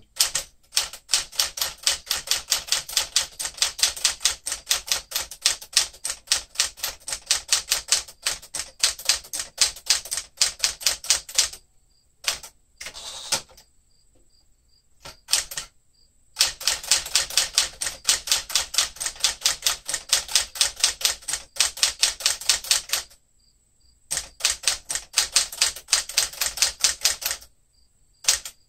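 1967 Sears Tower Citation manual typewriter, Smith Corona-built, being typed on: fast runs of keystrokes, several a second, broken by a few pauses of a second or two.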